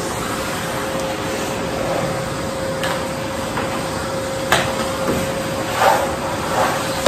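Canister vacuum cleaner running steadily with a constant motor hum as its floor nozzle is pushed over carpet. A sharp knock comes about four and a half seconds in, and two softer bumps follow near the end.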